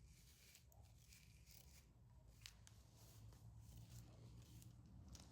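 Faint, irregular snips of thinning scissors cutting into wig hair, over a low background hum.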